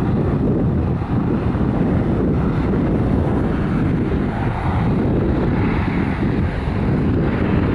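Twin IAE V2500 turbofan engines of a departing Airbus A320 at climb power, heard from behind as a steady low rumble, mixed with wind buffeting the microphone.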